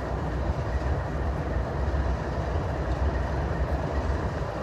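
Diesel locomotive idling with a steady low rumble.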